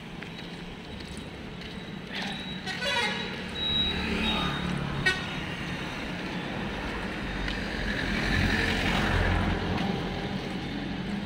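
Street traffic passing on a city road: a vehicle horn toots a few seconds in, and the traffic noise grows louder as a lorry passes close by in the second half.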